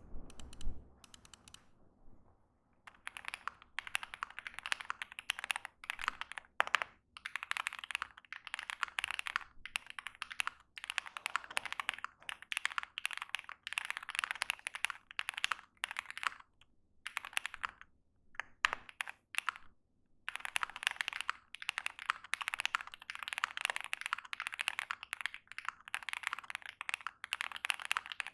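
Typing on a mechanical keyboard fitted with Mr. Suit switches: quick runs of clacking keystrokes, with a few short pauses and a longer break about three-quarters of the way through.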